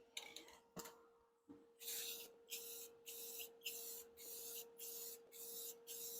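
Aerosol can of gloss black spray paint sprayed in a run of short hissing bursts, each about half a second, roughly two a second, starting about two seconds in after a few light clicks. A steady hum from a battery charger runs underneath.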